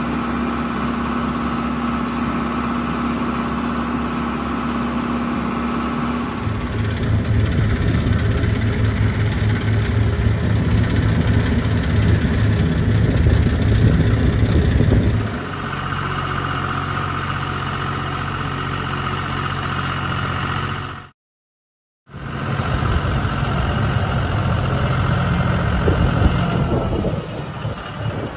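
Farm machinery engines running steadily: a riding tractor, then a grape harvester working a vineyard row. The sound changes abruptly at each cut between clips, and one cut leaves about a second of silence.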